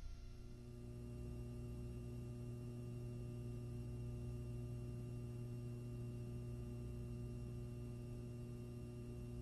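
Steady low electrical mains hum with a few evenly spaced overtones, beginning abruptly.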